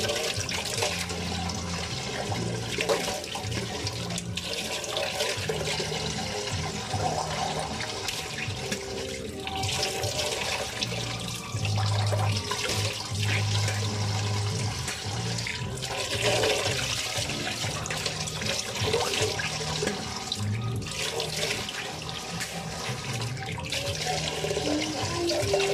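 Water runs steadily into a sink as someone rinses her mouth after brushing her teeth. Low throaty gargling comes in spells, the longest about twelve seconds in, with her head tipped back.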